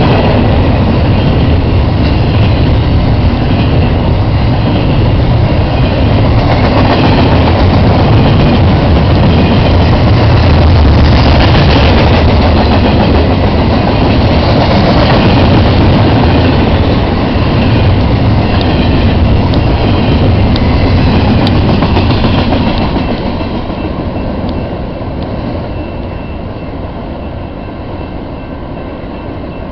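Double-stack container cars of a freight train rolling past, a steady din of steel wheels on rail. The noise fades over the last several seconds as the end of the train goes by.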